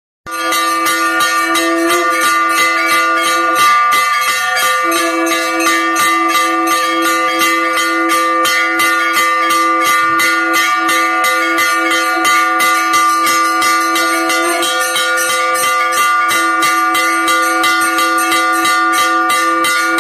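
Hanging brass temple bell rung continuously with rapid, even strokes, its ringing tones held steadily under the strokes. It starts suddenly just after the beginning.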